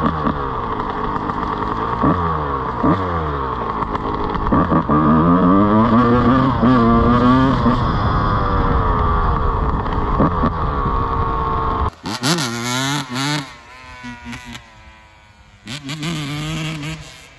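Yamaha YZ125 single-cylinder two-stroke dirt bike engine revving hard under riding, its pitch repeatedly climbing and dropping as it pulls through the gears. About twelve seconds in the sound drops off sharply, and the bike is heard fainter, revving up twice more.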